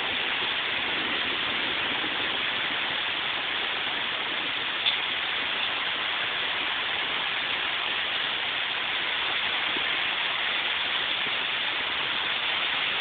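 Heavy thunderstorm rain pouring down in a steady hiss, with one small tick about five seconds in.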